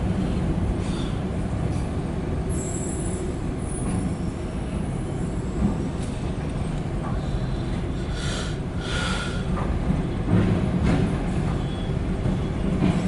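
Loaded autorack freight train rolling past with a steady rumble of cars and wheels on the rails. High wheel squeals come in briefly, about three seconds in and again around eight to nine seconds in.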